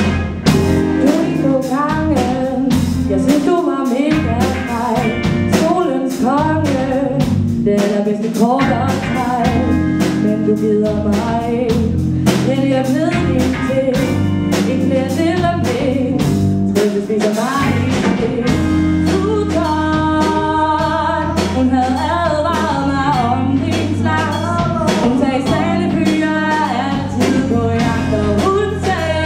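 A song with a singing voice over guitar and a steady beat.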